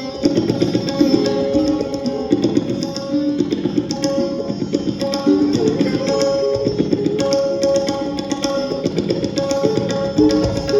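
Tabla enters at the start with rapid, dense strokes, accompanying a sitar and sarod melody in Hindustani classical music.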